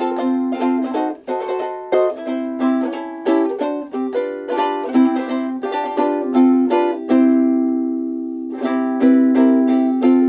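Soprano ukulele with a solid African mahogany Ditson-style body and fluorocarbon strings, strummed and picked through a chord progression. About six seconds in, one chord is left to ring out for about two seconds before the playing resumes.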